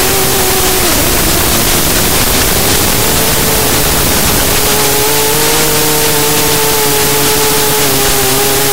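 Race quadcopter's motors and propellers whining at a steady pitch under loud rushing wind noise; the pitch drops about a second in, with a throttle change, and settles back to a steady whine a couple of seconds later.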